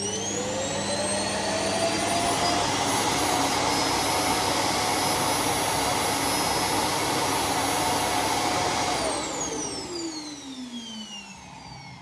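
Roomba s9+ Clean Base auto-empty dock running its suction motor to empty the docked robot's bin: a loud vacuum whine still rising in pitch at the start, holding steady, then winding down with a falling whine from about nine seconds in.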